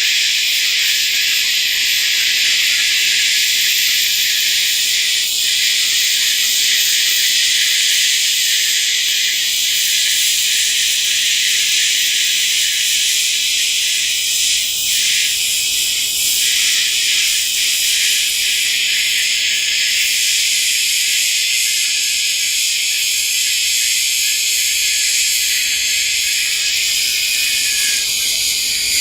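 AHP AlphaTIG 200x TIG welding arc burning steadily as a bead is run, a loud even high hiss.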